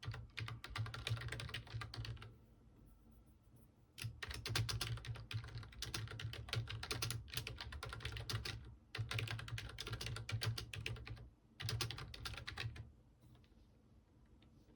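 Computer keyboard typing in quick bursts, broken by short pauses about two seconds in and about eleven seconds in, then stopping near the end, where only a few faint single clicks remain.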